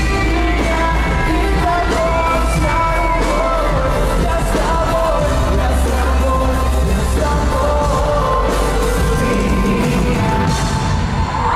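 Live pop concert music played loud over a sound system: a singer's voice over a heavy, steady bass beat. The bass drops out near the end.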